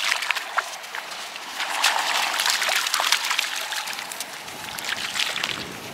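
A small terrier splashing as it runs through shallow water, a quick irregular patter of splashes that is busiest between about two and three and a half seconds in.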